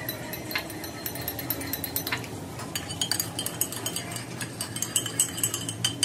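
Metal spoon stirring in a ceramic mug of hot water, clinking against the mug in quick succession through the second half, after a few scattered clinks as the mugs are handled.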